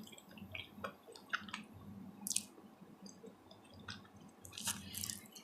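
Faint wet chewing and lip smacking of a person eating, with scattered small clicks and smacks, a few louder ones about two seconds in and near the end.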